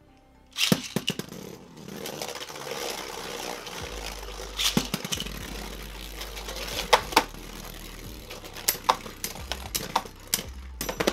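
Two Beyblade Burst spinning tops, Z Achilles and Wonder Valtrek in slingshot mode, are launched with ripcord launchers into a plastic stadium about half a second in. They spin with a steady whirr and clash in sharp clicks every second or two.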